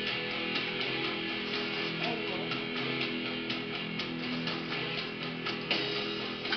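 Rock song with strummed guitar playing at a steady beat.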